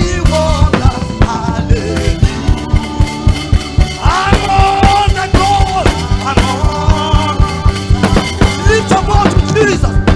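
Upbeat worship band music: a drum kit keeps a fast, steady beat under bass and a held melody line.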